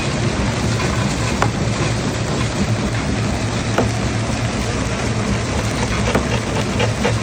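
Heavy rock-crushing machinery running: a steady low drone under a rough, grinding rumble, with a couple of sharp cracks and, near the end, a quick run of knocks.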